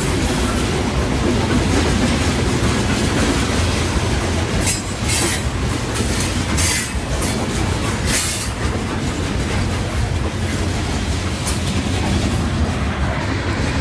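A train running along the track: a steady rumble of wheels on rails with clickety-clack, and a few brief high-pitched squeals from the wheels between about five and eight and a half seconds in.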